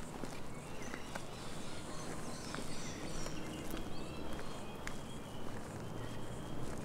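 A hiker's footsteps on a bush walking track, with scattered short bird calls and a few sharp clicks.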